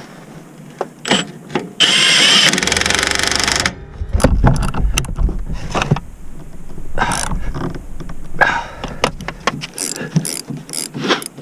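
Impact wrench run in one burst of about two seconds, tightening a rear shock absorber bolt. It is followed by scattered clicks and metallic knocks of a hand ratchet and wrench on the shock mount nuts.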